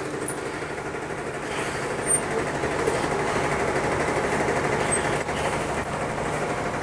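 Road traffic: a vehicle engine running, swelling slightly and easing off again as it passes.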